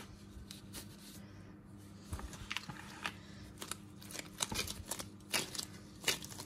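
Gloved hands peeling and pressing a stiff, dense clay paste: scattered soft clicks, crackles and crinkles of glove and paste, more frequent in the second half.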